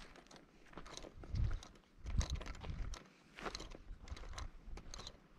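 Footsteps crunching over dry grass and sandy dirt at a slow walking pace, a step roughly every two-thirds of a second, some landing with a low thud.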